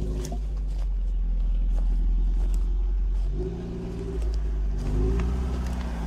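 Lada Niva's engine running as the lifted 4x4 pulls away over the forest floor, under a deep, steady low rumble. About three and a half seconds in the engine note climbs briefly and then holds.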